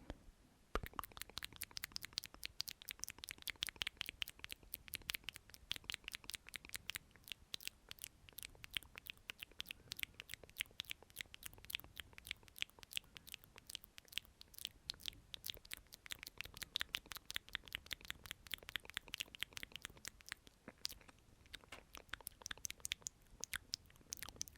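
ASMR lip sounds close to the microphone: rapid wet lip clicks and pops, several a second, a soft "plik"-like sound repeated, starting about a second in.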